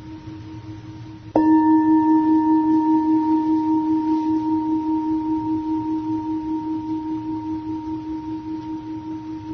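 Tibetan singing bowl struck once, about a second and a half in. It rings with a deep hum and a higher overtone that waver slowly and gradually fade, over the ring of an earlier strike that is already sounding.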